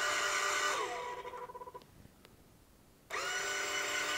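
Electric motor driving the lift of a 3D-printed robot arm, whining steadily as the arm moves. The pitch drops about a second in and the whine fades out; after about a second of quiet it starts again sharply.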